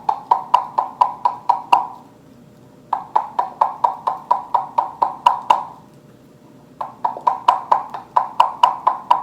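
Homemade string cup, a plastic cup with a string threaded through a hole in its bottom, pulled in short jerks to imitate a hen clucking. Three runs of quick clucks, about five a second, with short pauses between.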